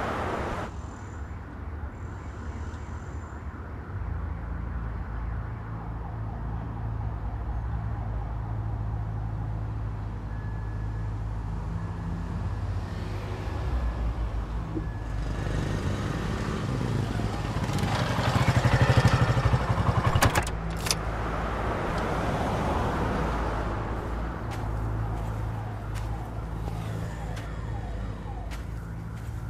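A motorcycle approaching and passing close by, loudest about two-thirds of the way through, over a steady low hum, with a couple of sharp clicks just after the peak.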